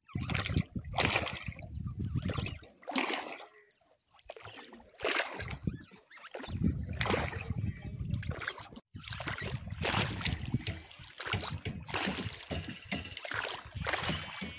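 A rowboat being rowed: a wooden oar dipping, splashing and sloshing through the water in uneven surges.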